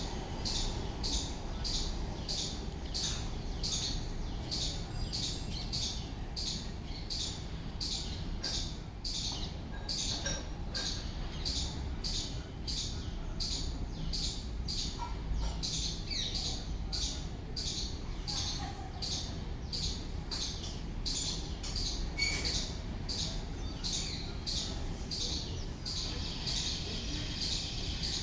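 A pigeon feeding fast: a steady, rapid series of short high-pitched sounds, about two or three a second.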